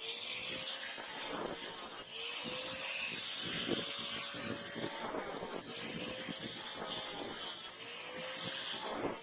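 Power tool grinding steel: a steady grinding hiss with a faint motor tone that rises and falls, breaking off abruptly a few times as one short stretch gives way to the next.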